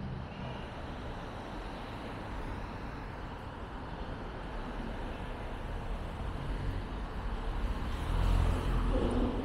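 Steady street traffic noise, swelling as a car drives past close by about eight seconds in.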